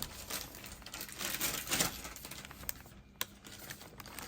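Plastic MRE packaging crinkling and rustling as it is handled, in irregular bursts, with a few sharp clicks near the end.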